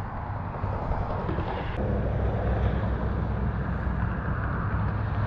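Low, steady rumble of a passing motor vehicle, growing louder about two seconds in.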